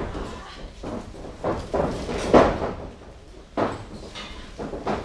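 Wrestlers' bodies and feet hitting the wrestling ring's canvas, a series of thuds in quick succession, the loudest a little past two seconds in.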